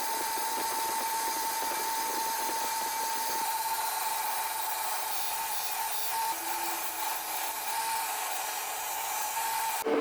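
A small power tool running steadily, a high whine over a hiss, stopping near the end.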